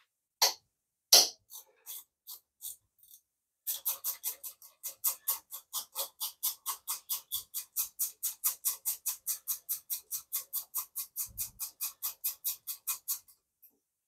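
Ratchet wrench clicking as a bolt is wound out. First a few separate clicks, then a quick, even run of about five clicks a second lasting around nine seconds, which stops shortly before the end.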